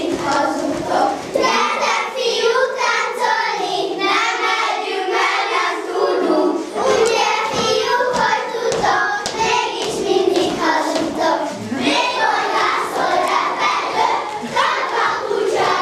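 A group of young children singing a song together, with hand claps through it.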